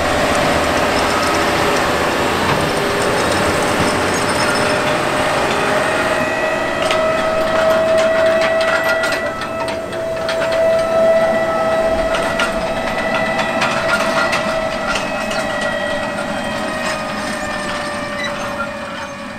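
Case IH Quadtrac tractor running under load while pulling a 47-row Case IH 2160 Early Riser corn planter: a steady engine drone with a high whine held on one pitch, and the planter's row units clattering and rattling through the middle.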